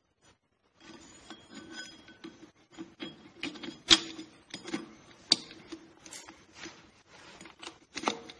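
Overrun clutch hub being worked down into the clutch drum of an RE4R01B automatic transmission: irregular metal clicks and rattles of the splines and friction plates, with a few sharp knocks, starting about a second in.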